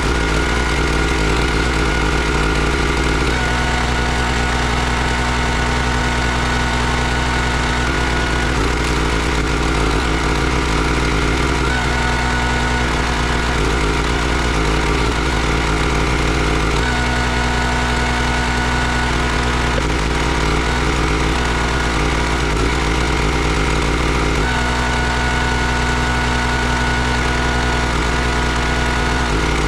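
Small gas engine of a Country Line 32-ton hydraulic log splitter running steadily. Its note shifts every few seconds as the ram is cycled to split logs.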